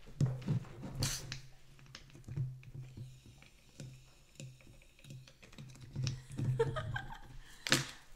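Alka-Seltzer tablet pieces and a bottle cap handled at the neck of a glass bottle of water and vegetable oil: a run of small clicks and taps with soft knocks, and a faint fizzing hiss from the dissolving tablets in the middle. One sharp click near the end.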